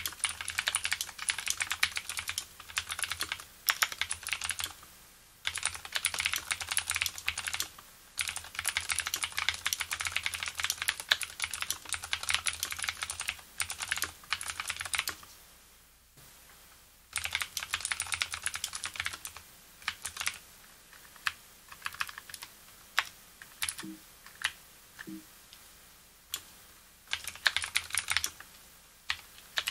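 Typing on a Leopold FC750R keyboard with clicky Cherry MX Blue switches whose springs have been lubricated. Fast, dense runs of keystrokes stop for about two seconds around the middle, then go on as slower, sparser strokes with a last quick run near the end.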